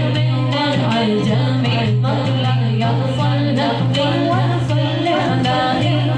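Women's voices reciting a naat, a devotional song in praise of the Prophet, in a flowing melody, with a light, steady beat underneath.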